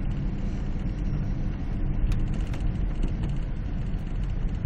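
Car driving through deep snow, heard from inside the cabin: a steady low rumble of engine and tyres, with a couple of faint ticks about two seconds in.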